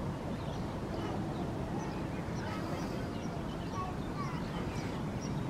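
Birds chirping and calling in many short high notes over a steady low rumble.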